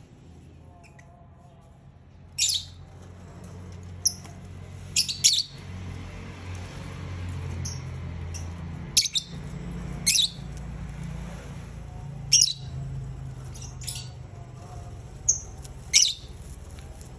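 Lovebirds giving short, sharp chirping calls, about ten of them spread out with a few in quick pairs, over a low steady hum.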